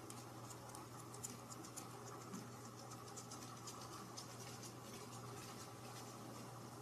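Faint, irregular scratchy ticks and rustling from a kitten pawing at a pom-pom wand toy on a fabric couch, over a low steady hum.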